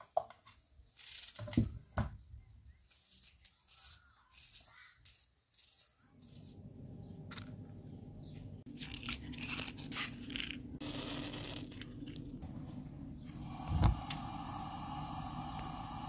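A knife cutting an onion, with a few sharp clicks of the blade against the pan. About six seconds in, a steady low rushing starts: a lit gas stove burner, with scattered clicks and one heavy knock near the end.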